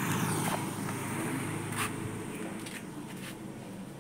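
Motor scooter passing and slowly fading away, with a few short clicks over it.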